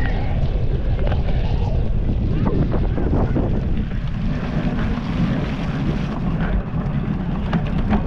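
Wind rumbling steadily on a GoPro action camera's microphone as it moves at speed, with a few sharp knocks near the end.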